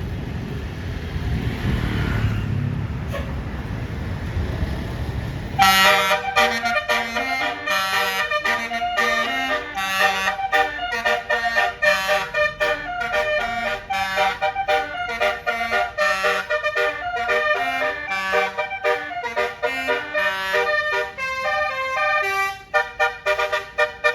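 Low road and engine rumble. About six seconds in, a bus's basuri telolet horn starts loudly, playing a quick melody of stepped notes in chords that runs on without a break.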